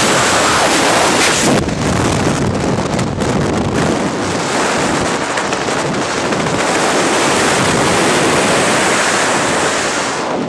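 Loud, steady wind rushing and buffeting over a skydiver's camera microphone in the air.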